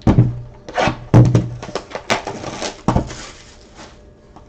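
Trading cards and their packaging being handled on a table: a quick run of sharp clicks, taps and short rustles, thinning out in the last second or so.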